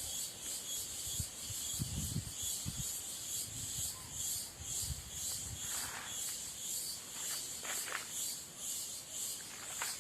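Cicadas singing in a steady, evenly pulsing high-pitched chorus, with a few soft low thumps in the first half.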